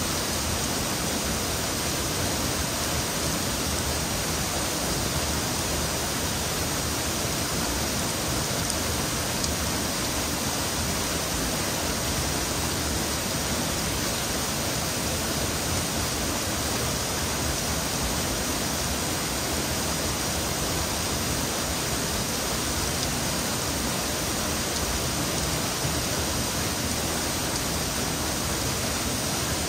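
A narrow waterfall dropping off a shale cliff into a plunge pool, giving a steady, unbroken rush of falling and splashing water.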